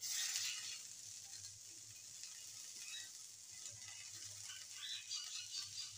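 Chopped fresh coriander leaves going into hot mustard oil in a frying pan: a sizzle that flares loudest as they go in, then settles to a steady hiss with scattered light pops.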